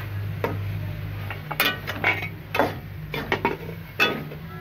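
A metal spoon stirring chopped spinach in a metal cooking pot, knocking and scraping against the pot's sides in irregular strokes. A steady low hum runs underneath.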